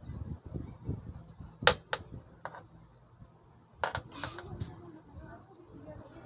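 A scattering of sharp clicks and pops with dull low thumps as the amplifier's volume knob is handled and turned. The loudest click comes a little under two seconds in, and a cluster follows about four seconds in.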